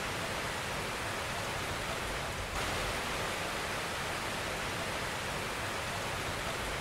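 Steady rushing noise of moving water, even and unbroken, growing slightly brighter about two and a half seconds in.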